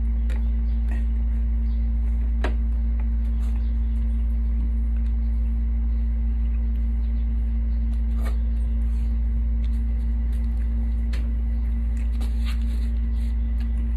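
A steady low hum with a faint higher tone above it, and a handful of sharp clicks and smacks from eating by hand off plates.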